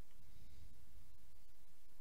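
Quiet background: a faint low rumble of room tone, with no distinct sound.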